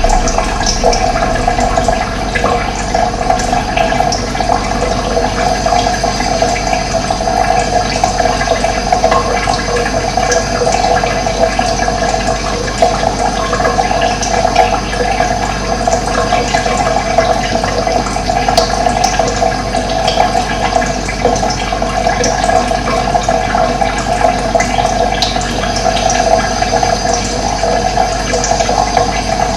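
Running water flowing steadily and continuously, an even rushing with its strongest part in the middle range.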